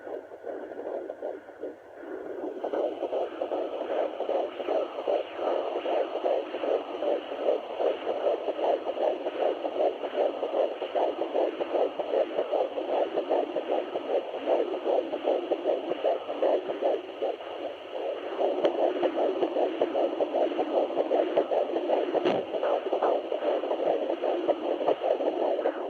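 Fetal heartbeat at 13 weeks picked up by a Sonoline B fetal Doppler and played through its speaker: a fast, steady whooshing pulse. It grows louder about 2.5 seconds in and again about 18 seconds in.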